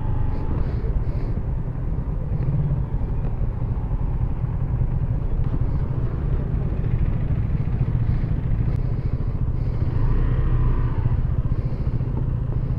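Motorcycle riding along a highway, its engine running under a dense, steady low rush of road and wind noise.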